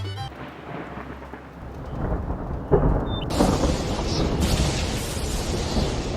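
A low rumble that builds up, a sharp thump about three seconds in, then a steady rushing noise like heavy rain.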